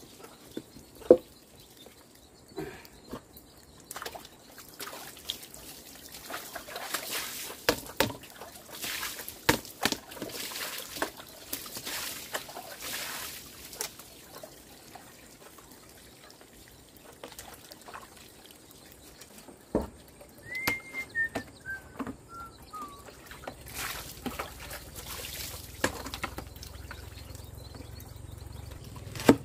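Water trickling and being poured, with scattered knocks and clatter from handling. A short falling run of bird chirps comes about two-thirds of the way through.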